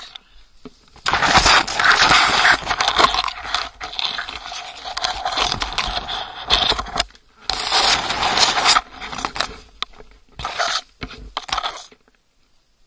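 Loud scraping and crackling with rattling clicks, coming in long bursts and stopping about twelve seconds in.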